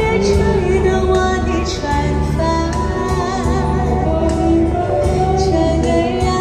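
A woman singing a Chinese pop song live over a recorded backing track with a steady bass beat, played through a portable column PA speaker.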